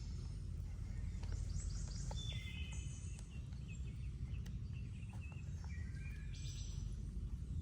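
Birds singing in short, high trills, a few phrases about three and six seconds in, over a steady low rumble of outdoor background noise.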